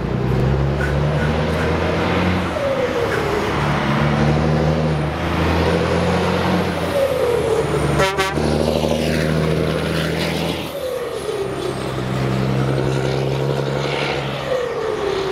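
DAF XF105.410 truck with an open exhaust pipe driving past under power. Its diesel engine runs loud and deep, and the note falls four times over the stretch. A short sharp burst comes about eight seconds in.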